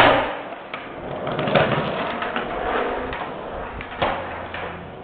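Skateboard on concrete: a loud slam at the start as the board hits the ground, then scattered knocks and clacks from the board over the noise of its wheels.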